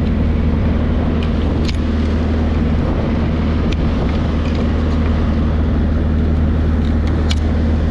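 Boat engine running steadily under way, a loud low drone, with a few light sharp clicks over it.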